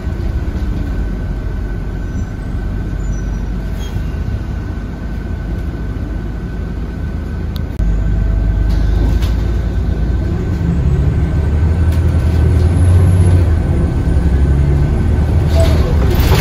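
Scania DC9 nine-litre five-cylinder diesel of a Scania L94UB bus running, heard from inside the passenger cabin as a steady low drone. The drone steps up suddenly about eight seconds in and then grows louder.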